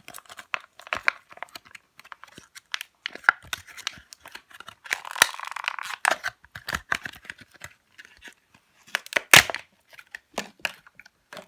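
Plastic toy packaging being handled and opened: a run of sharp crackles and clicks, with a longer tearing rustle about five seconds in and a loud snap near the nine-second mark.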